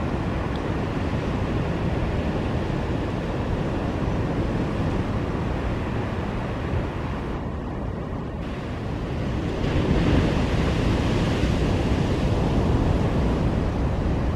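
Ocean surf washing on the shore, with wind buffeting the microphone; the surf swells louder about two-thirds of the way through.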